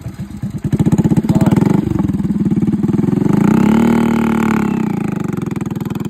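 Motorcycle engine running with a clear beat of firing pulses. It is throttled up about a second in, then revved higher to a peak around four seconds and let back down.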